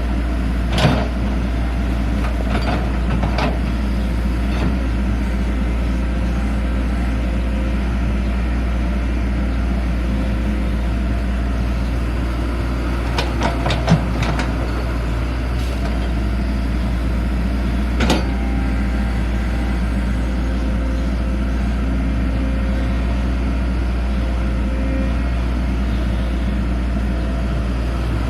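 Excavator's diesel engine running steadily, with a few short knocks and clanks from the machine at work, the sharpest about 14 seconds in and another about 18 seconds in.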